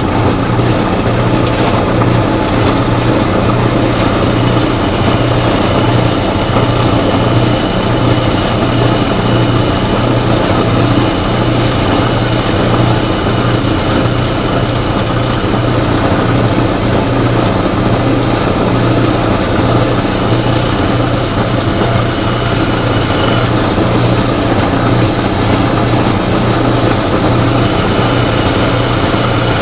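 Electric power tool motor running steadily under load, cutting a hole through a metal welding-gun adapter plate.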